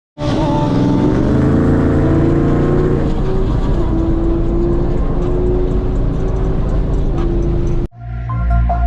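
Ford Mustang's Coyote 5.0 V8 engine running loud, its pitch easing down over the first few seconds and then holding steady. It cuts off abruptly about a second before the end, and music with mallet-like tones comes in.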